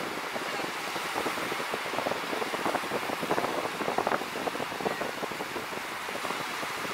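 Surf breaking along the shore, a steady rushing, with wind on the microphone.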